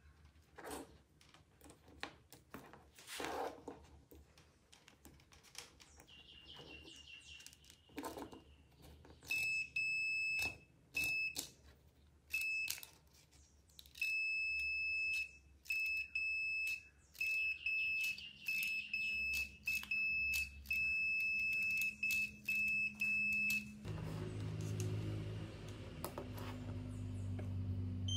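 Digital clamp meter's continuity beeper: a steady high-pitched beep that starts about a third of the way in, cutting on and off in short beeps and longer holds as the probes touch the cordless drill trigger switch's terminals, the sign that the switch contacts are conducting. A low hum comes in near the end.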